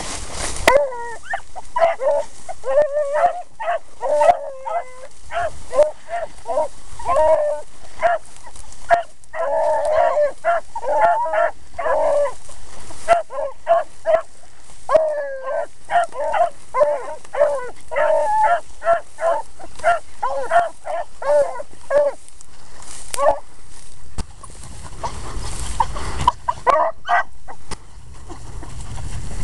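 Three beagles baying on a scent trail, a rapid run of short, overlapping yelps and bawls from several dogs at once. Near the end the calls pause for a few seconds under rustling noise, then start again.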